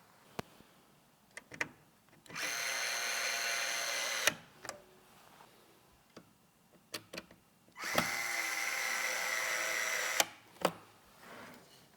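Electric screwdriver running in two bursts of about two seconds each, a steady motor whine that spins up quickly at the start of each. Small clicks and taps of parts being handled come between the bursts.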